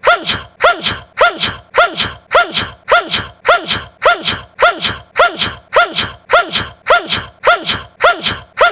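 A young man's short, high sneeze repeated as a loop, about two sneezes a second. Each one is a quick rising voiced 'ah' snapped off into a breathy 'choo'.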